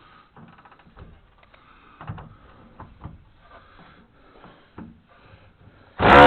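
Hand tools on the truck's rusty metal: scattered light clicks, knocks and scrapes at an uneven pace. A much louder sound starts abruptly near the end.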